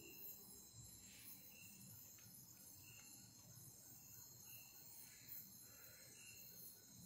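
Faint night-time insect chorus: crickets trilling steadily, with a short high chirp repeating about every one and a half seconds.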